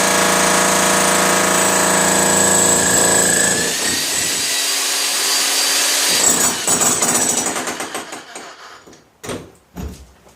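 Harbor Freight electric jackhammer running and hammering into concrete. Its sound changes a little before four seconds in. It stops and dies away from about six seconds in, and two short knocks follow near the end.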